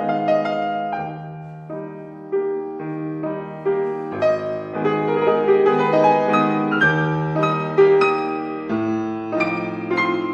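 Piano music: a continuous run of struck notes over lower chords.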